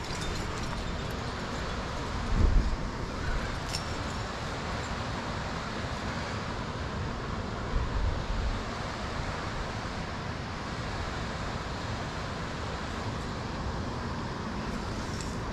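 Steady wind noise on the microphone, with stronger low gusts about two and a half and eight seconds in.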